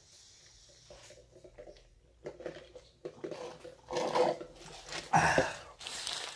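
Close-up mouth sounds of a person eating: chewing and smacking, faint at first, then louder wet bursts from about three seconds in.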